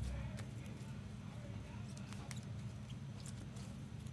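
A steady low hum with a few faint, light clicks scattered through it.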